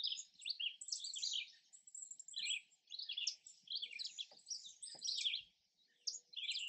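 Songbirds singing: many overlapping chirps and quick trills, easing off briefly about five and a half seconds in.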